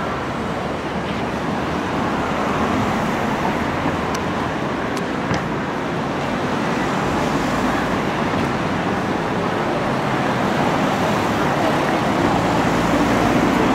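Steady road traffic on a seafront road, with a car passing close by near the end.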